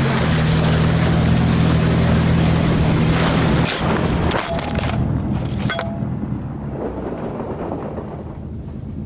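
A vehicle engine running steadily under wind and driving noise, followed by a run of sharp knocks and clatter about four to six seconds in, after which the engine hum fades back.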